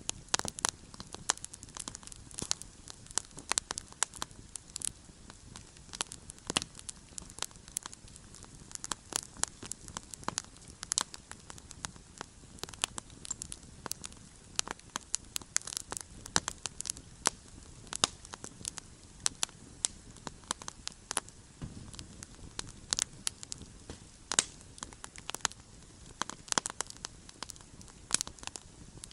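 Campfire crackling: a steady stream of irregular sharp pops and snaps from burning wood over a low hiss.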